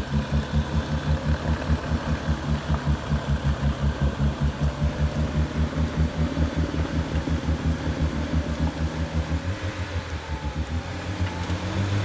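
Off-road vehicle engine idling with an even, lumpy pulse of about five or six beats a second; near the end the engine note shifts as the revs change.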